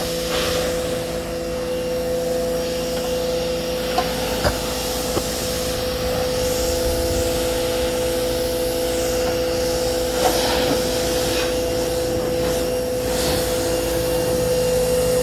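Giraffe Tools Grandfalls electric pressure washer running steadily, its motor and pump giving a constant whine over the hiss of the spray. A few short knocks come about four seconds in.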